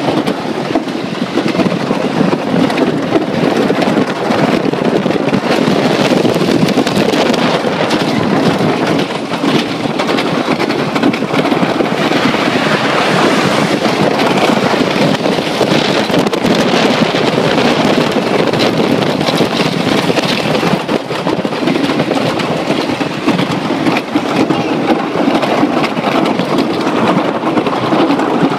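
Wooden roller coaster train (Great Coasters International, Millennium Flyer cars) running at speed over wooden track: a steady rumble with constant rattling clatter, mixed with wind rushing over the microphone.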